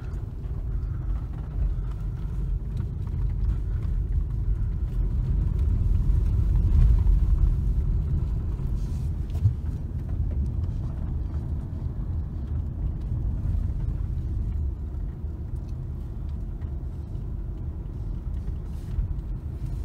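Low, steady rumble of a car's engine and tyres on the road, heard from inside the cabin while driving. It grows a little louder several seconds in.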